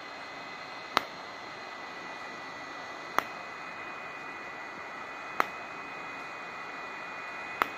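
Home pulsed-light (IPL) hair-removal handset firing four flashes, each a sharp click, about two seconds apart, over the steady whirr of its cooling fan with a faint high whine.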